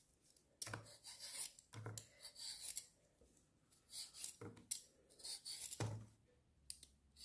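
A Y-shaped vegetable peeler scraping the skin off a raw potato: about five quiet scraping strokes with short pauses between them.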